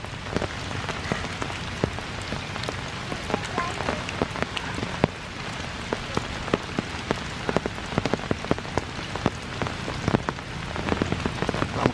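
Steady rain falling, with many sharp ticks of single drops.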